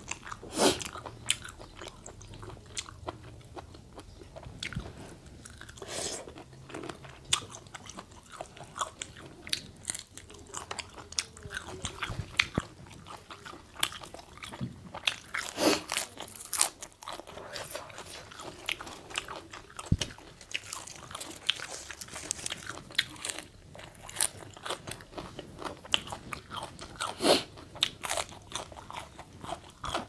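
Close-up mouth sounds of a person eating a spicy Thai instant-noodle seafood salad by hand: chewing with irregular crisp crunches and bites, a few louder crunches standing out.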